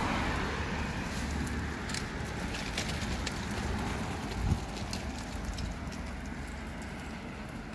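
A car driving past, its tyre and engine noise fading away over the first couple of seconds and leaving a low rumble. A single sharp thump comes about four and a half seconds in.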